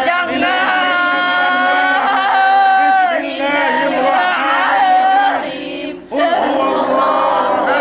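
A woman's long, high-pitched wailing cries, held for seconds at a time, breaking off briefly about six seconds in. She is being held down during an exorcism, and those present take her to be possessed by a spirit.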